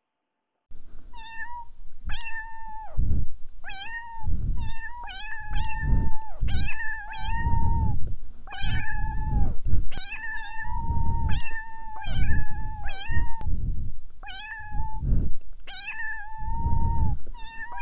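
Cat meowing over and over in a long run of short, high-pitched calls, some held for about a second, starting a moment in after a brief silence. A low rumble sits under many of the calls.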